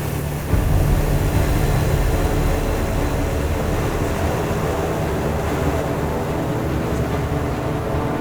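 Propeller plane's piston engine droning steadily, heard from the cockpit of a SIAI-Marchetti SF.260 trainer; it gets louder about half a second in.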